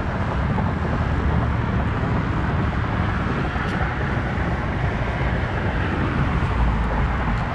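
Wind buffeting the microphone on an open shoreline: a steady low rumble of noise.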